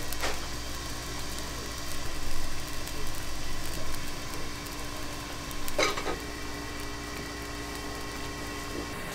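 A steady mechanical hum with a low rumble beneath it, broken by a sharp knock right at the start and another about six seconds in.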